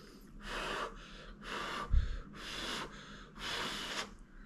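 A person slurping instant spaghetti noodles: four noisy slurps about a second apart, each lasting about half a second, with a short low thump about two seconds in.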